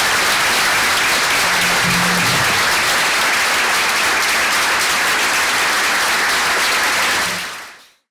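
Audience applauding steadily, a dense clapping that fades out quickly near the end.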